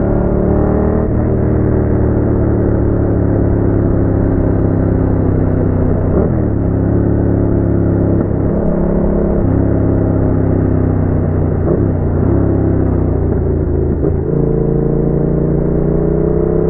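Yamaha MT-07's 689 cc parallel-twin engine running through a Roadsitalia aftermarket exhaust. The engine note holds steady for stretches, dips and steps in pitch several times through the middle, and climbs slowly near the end.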